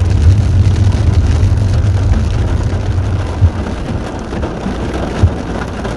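Heavy rain pattering on a car's roof and windshield, heard from inside the cabin, over the low rumble of the moving car, which eases off about halfway. Two dull thumps stand out, one past the middle and one near the end.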